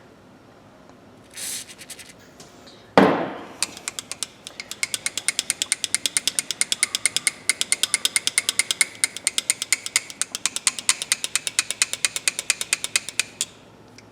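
Rust-stiffened pliers worked rapidly open and shut while their joint is being freed, the metal jaws clicking together about seven times a second for some ten seconds. Before the clicking there is a short hiss and then a single loud knock.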